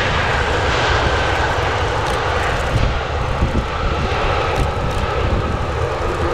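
Boeing 767-338ER's twin GE CF6-80C2 turbofan engines running loud and steady through touchdown and the landing roll, with a high whine over the rushing jet noise.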